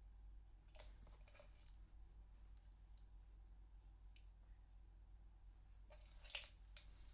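Near silence with a low steady hum, and faint scratchy rustles of a flat brush spreading Mod Podge over a napkin on a painted glass jar, with a short burst of louder rustling about six seconds in.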